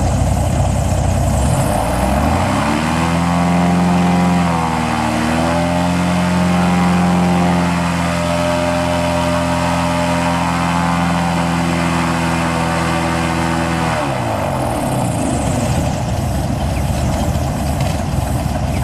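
Airboat engine and propeller revving up from idle about two seconds in, held at high revs with a brief dip, then dropping back to idle near the end.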